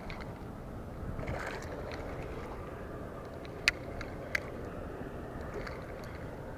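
Steady low outdoor background rumble with two sharp clicks, under a second apart, about midway.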